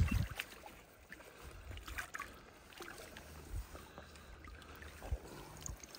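Faint water splashing and lapping with scattered small clicks and knocks, two of them a little stronger about three and a half and five seconds in.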